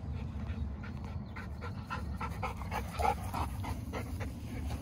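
Dog panting quickly in short, even breaths that grow louder as it comes up close, over a steady low rumble.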